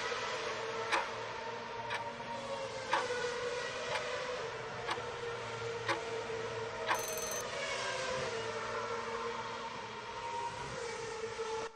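Quiz countdown timer ticking about once a second over a steady droning background whose pitch slowly glides up and down. About seven seconds in, the timer runs out with a short, high ding, and the ticking stops.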